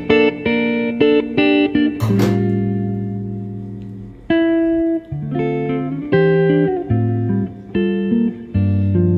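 Background music of plucked guitar notes in a steady melodic pattern. About two seconds in, a chord is struck and rings out, fading for a couple of seconds before the plucked notes resume.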